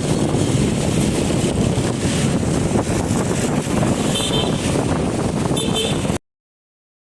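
Road traffic with wind on the microphone, heard from a moving vehicle, and two short horn beeps, about four and five and a half seconds in. The sound cuts off suddenly about six seconds in.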